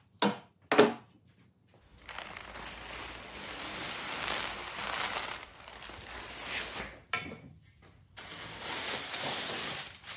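Clear plastic tape being peeled off a cured epoxy-coated plywood joint: a crinkling, tearing rasp in two long pulls with a short break between them. Two sharp knocks come in the first second.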